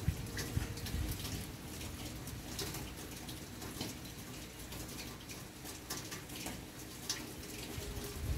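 Rain falling, with many separate drops dripping and ticking close by.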